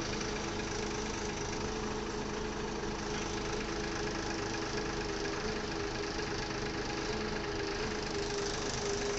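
Mobile crane's diesel engine running steadily, heard from inside the operator's cab, with a constant hum of several held tones.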